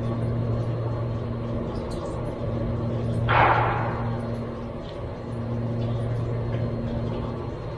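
A single shot from a CZ 457 MTR .22LR bolt-action rifle about three seconds in, sudden and fading within a second. A steady low hum runs underneath.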